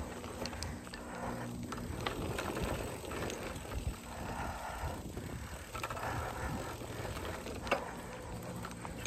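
Mountain bike coasting downhill on a dirt trail: the freewheel hub ticks, and the bike rattles and clatters over bumps, with tyre noise on the dirt. A sharper clack comes about three-quarters of the way through.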